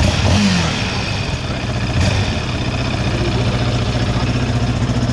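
Yamaha Raptor 700's single-cylinder four-stroke engine idling, briefly revved near the start and again about two seconds in. Its owners hear a rattle that they place inside the muffler, though the muffler itself is not loose.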